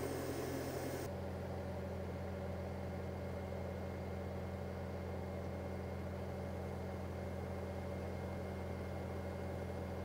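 Bobcat compact track loader's diesel engine running steadily, a constant low hum with no revving, as it powers the hydraulics of a skid-steer-mounted CPT push system.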